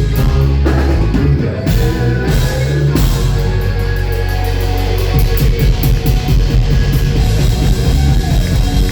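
Live rock band playing an instrumental passage: electric guitars, bass and a drum kit, loud and steady, with heavy low end and fast drum hits.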